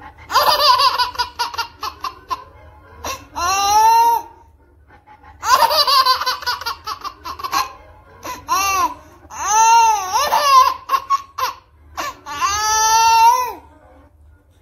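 A baby laughing in several bouts of high-pitched, squealing giggles, each rising and falling in pitch, with short pauses between.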